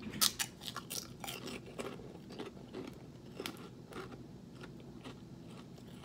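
A crisp microwaved pork rind crunching as a man bites into it and chews. There is a loud crackle at the first bite just after the start, then a quick run of crunches that thins out to a few scattered ones by about four seconds in.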